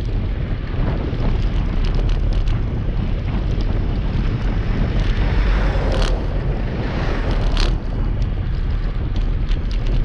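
Wind buffeting the microphone of a camera on a moving bicycle, a heavy low rumble with road and traffic noise, and frequent short clicks and rattles. A louder rushing noise swells about halfway through.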